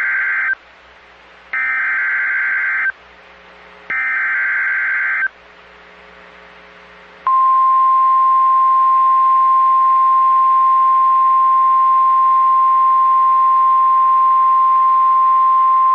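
Weather radio alert signalling: three buzzy SAME digital header bursts about a second apart, the first already under way, then the steady warning alarm tone from about seven seconds in. This is the data header and 1050 Hz alert tone that open a new warning broadcast.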